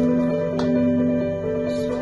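Background music: soft instrumental with plucked guitar notes over held tones.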